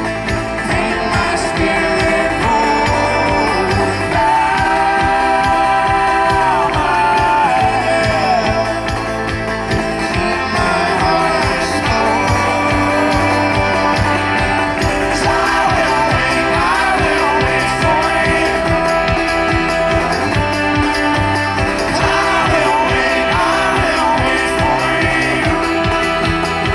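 Live folk-rock band playing at full volume, with singing over a steady, driving beat.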